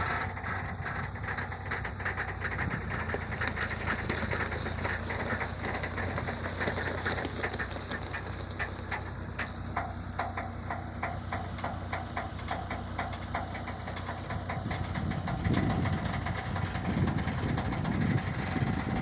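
Heavy construction machinery engine running steadily, with a rapid clattering rattle over it for much of the time and a louder low rumble near the end.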